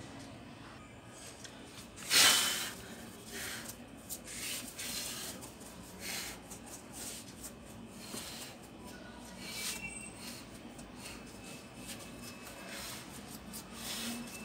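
Cloth wiping across the glossy screen of an LED TV, a series of short irregular swishes, with one louder swipe about two seconds in.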